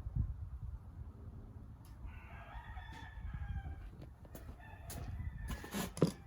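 A single drawn-out animal call lasting about two seconds, followed near the end by a few sharp knocks and a short clatter.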